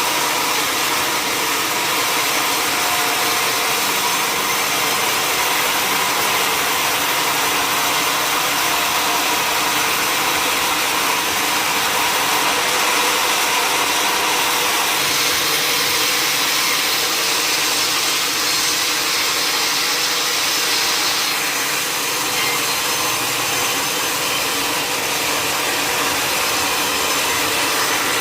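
Sawmill log saw running steadily, a continuous machine and sawing noise without a break. Past the middle a higher hiss rises over it for about six seconds.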